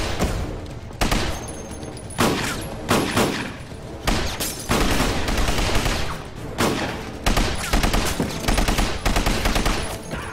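Automatic gunfire in repeated bursts of rapid shots with short pauses between them, each shot trailed by an echo.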